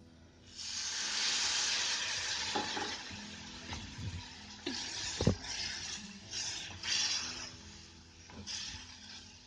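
Sour curd poured into a hot kadhai of oil-fried green chillies and roasted besan, hitting the pan with a loud sizzle about half a second in that fades over the next few seconds. Then a spatula stirs the chillies through the curd, with short bursts of sizzling and a few knocks against the pan.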